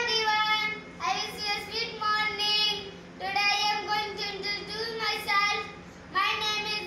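A young boy singing a song in short phrases of about a second each, with held notes between brief pauses.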